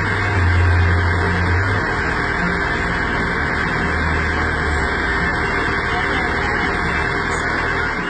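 JCB backhoe loader's diesel engine running steadily while the machine is stationary, with a low hum that swells briefly about half a second in and again about four seconds in.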